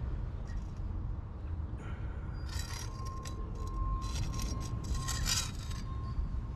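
Flat caulk-tooling blade scraping along a fresh sealant bead in the joint between concrete and stone, a run of rough scraping strokes in the middle few seconds, over a steady low rumble.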